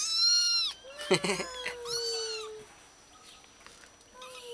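Young kittens mewing: two loud, high-pitched mews in the first three seconds, with a short harsh burst about a second in, then fainter calls near the end.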